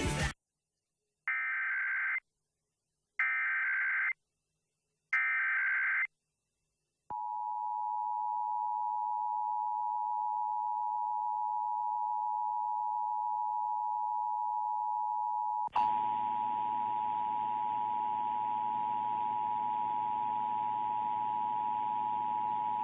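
Emergency Alert System test: three one-second bursts of the screeching SAME digital header, each followed by a second of silence, then the steady two-tone EAS attention signal. About 16 s in there is a click, and a hiss of static comes in under the tone, which carries on.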